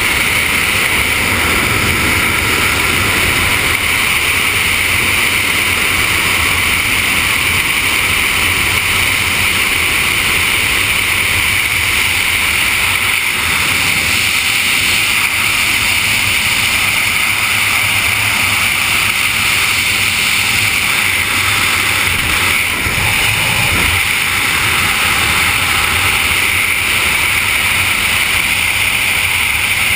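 Freefall airflow rushing over a camera's microphone during a wingsuit skydive: a loud, steady wind roar with a low rumble that holds without a break.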